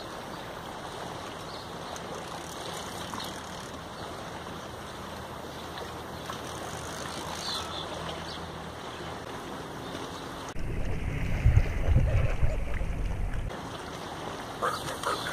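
Steady wind noise on the microphone. About ten seconds in it turns suddenly into a much louder, low buffeting gust that lasts a few seconds.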